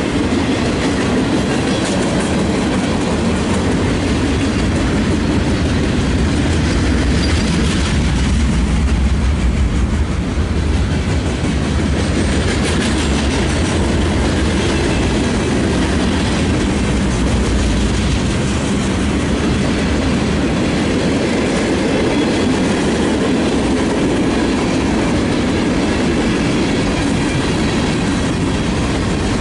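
Freight cars of a Union Pacific mixed freight train rolling past on the rails: a steady rumble and rattle of wheels on track, heaviest about a third of the way in.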